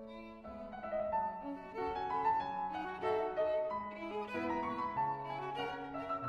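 Background instrumental music: a violin melody in held notes over piano and low strings, with deeper bass notes coming in near the end.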